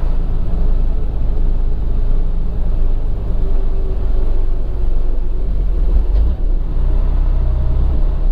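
Semi-truck tractor driving, heard from inside the cab: a steady low rumble of the diesel engine and road noise.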